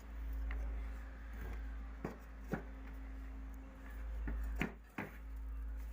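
Scattered knocks and clicks of tools and parts being handled while a window air conditioner's fan motor is dismantled, about seven sharp taps at uneven intervals, over a low steady rumble.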